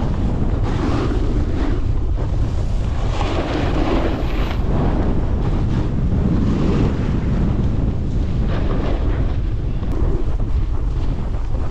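Wind buffeting a moving camera's microphone during a downhill snowboard run: a steady low rumble, with swells of hiss and scraping from snow under the carving board rising and falling every second or two.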